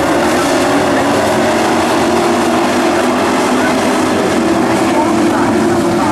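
Engines of a pack of dirt-track race trucks running hard together as they race, a steady, loud drone of several engines.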